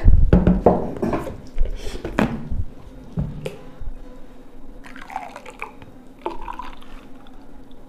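A fruit drink poured from a plastic pitcher into drinking glasses, splashing and gurgling as the glasses fill, with a few knocks near the start.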